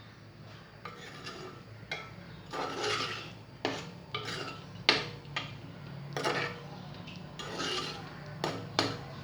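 A cooled stovetop pressure cooker being opened, with metal scraping, rubbing and a few sharp clinks and knocks of lid and utensil against the steel pot.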